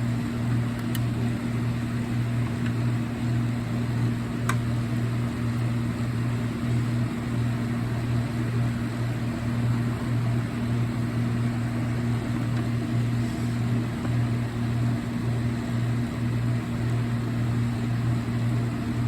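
A steady low mechanical hum, with a single faint click about four and a half seconds in.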